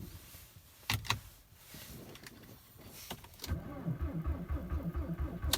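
Volkswagen ALH 1.9 L TDI diesel cranked on the starter for about two seconds in deep cold (about −20 °C) after one glow plug cycle. It turns over with even compression pulses about five a second but does not fire. A click comes about a second in, and another at the end of the cranking. It is a cold no-start, which the owner thinks the roughly 20% biodiesel in the tank may be contributing to.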